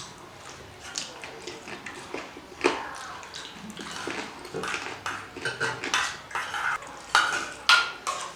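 Dishes and eating utensils clinking and scraping at irregular intervals as food is eaten off plates, with several sharper clicks near the end.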